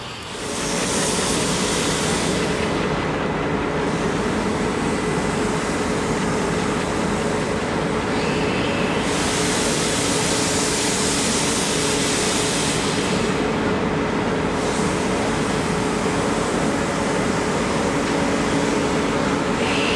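WP class 4-6-2 steam locomotive working a train, a steady heavy rush of noise with three long spells of loud steam hiss.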